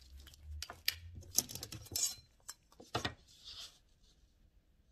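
A string of light metallic clicks and clinks as a steel ruler is handled and laid down on paper on a tabletop, followed near the end by a soft rustle of paper.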